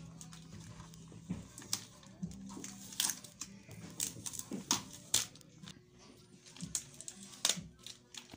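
Blue shipping tape being peeled off a new printer's plastic casing, with the clear protective film crinkling: irregular sharp crackles and rips, a few louder ones about three, five and seven and a half seconds in.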